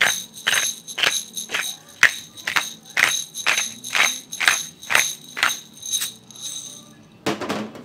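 Hand pepper mill being twisted over a dish of grated parmesan: a rhythmic crunching grind, about two strokes a second, that stops about seven seconds in, followed by a brief rustling noise near the end.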